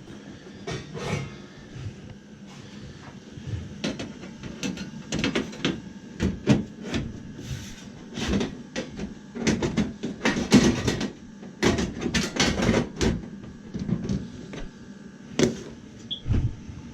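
Irregular knocks, clicks and rattles of hard objects being handled, coming thick and fast through the middle and a few more near the end.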